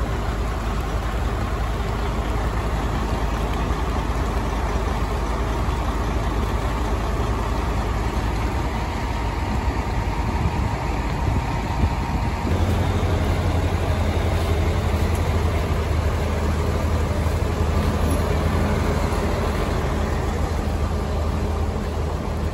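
Diesel fire trucks idling, a steady low engine rumble that grows louder about halfway through.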